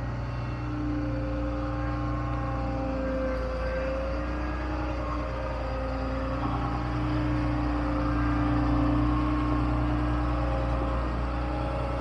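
Vehicle engine running steadily, a low rumble with an even hum whose pitch wavers only slightly.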